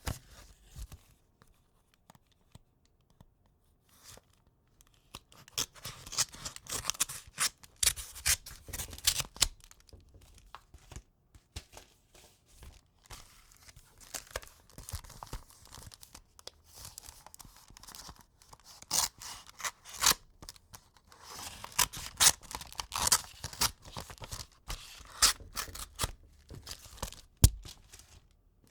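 A knife slitting open a paper envelope: runs of rasping paper cutting and tearing. It is quiet for the first few seconds, and there is a sharp click near the end.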